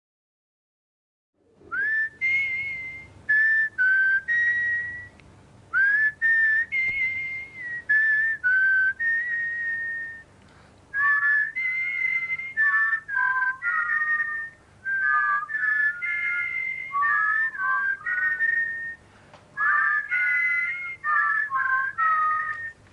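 About a second and a half of silence, then a person whistling a tune: a single clear note line stepping and gliding through short phrases with brief breaks between them.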